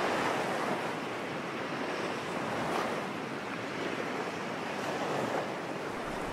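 Steady rush of sea water and wind, with no distinct events.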